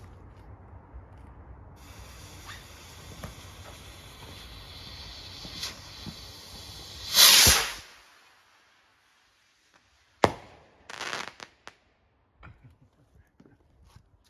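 A rocket firework: the lit fuse hisses for about five seconds, growing louder, then the rocket takes off with a loud whoosh. About three seconds later comes a sharp bang, and a second, shorter burst of noise follows a second after.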